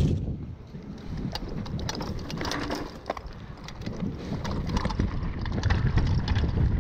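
Wind buffeting the microphone and tyres rolling over a dry dirt trail as a mountain bike descends, with scattered clicks and rattles from the bike and loose stones. It is quieter about half a second in and builds again over the last few seconds.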